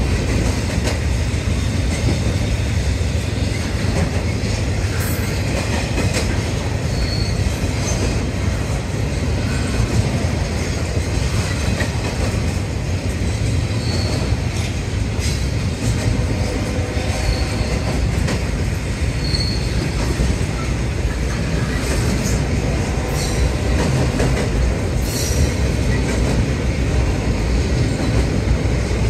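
Double-stack intermodal freight train rolling steadily past: a continuous deep rumble of steel wheels on rail with clickety-clack over the rail joints and a few brief high squeals.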